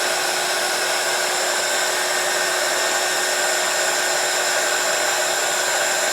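Hot air gun blowing steadily, a constant rush of air with a steady fan whine over it, as it shrinks heat-shrink tubing onto a soldered wire joint.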